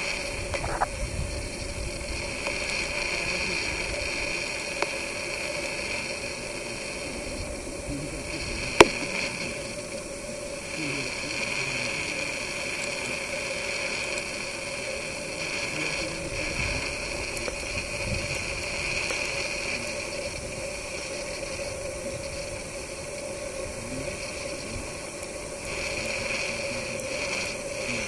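Steady outdoor background hiss with a constant low hum and a high drone that swells and fades every few seconds, some low rumbling, and a single sharp click about nine seconds in.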